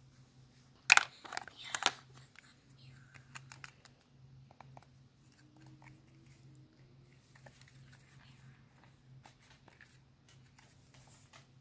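Hands handling small objects up close: a quick cluster of sharp clicks and taps about a second in, then faint scratchy rustling and light clicks.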